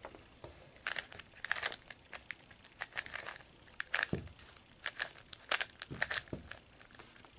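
Plastic Z-Penrose 3x3 puzzle cube being turned by hand: quick, irregular clicks and scraping rasps as its layers are twisted.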